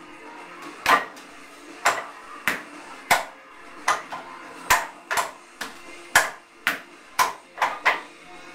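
Hands and forearms striking the wooden arms of a wing chun wooden dummy (mook jong): a quick, uneven run of sharp wooden knocks, about fourteen, some coming in fast pairs.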